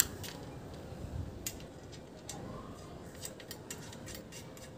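Scattered light metallic clicks and taps as a bolt and nut are fitted by hand into a steel satellite-dish mounting bracket, with a small cluster of ticks near the end.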